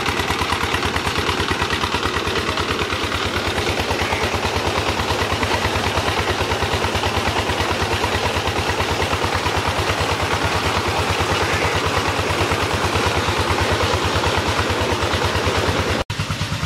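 Single-cylinder horizontal diesel engine running steadily with an even, rapid chugging beat as it drives a tube-well pump by belt. Water gushes from the pump's outlet pipe into a brick channel.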